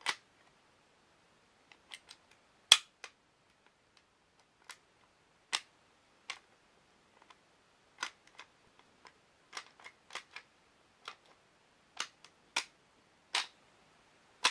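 Irregular sharp clicks and clacks of the parts of a WE Hi Capa 5.1 airsoft pistol being handled, with short quiet gaps between them; the loudest click comes about three seconds in.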